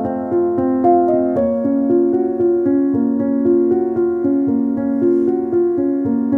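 Background piano music: a slow melody of held notes that change every half second or so.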